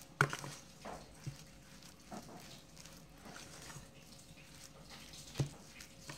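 Hands kneading minced meat with sago starch in a stainless steel bowl: faint, irregular squishing, with a few short knocks, the sharpest just after the start and about five and a half seconds in.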